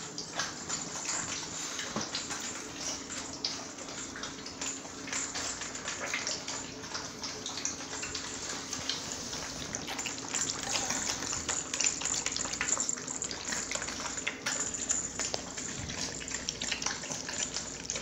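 Litter of three-week-old puppies lapping milk and cottage cheese from a shared feeding dish, their first meal at weaning: many small wet laps and smacks overlapping in a dense, unbroken patter.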